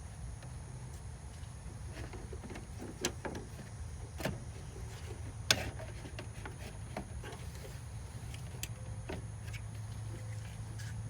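Scattered light clicks and a few sharper knocks as car parts and tools are handled during a radiator install, the loudest knock about five and a half seconds in, over a steady low rumble.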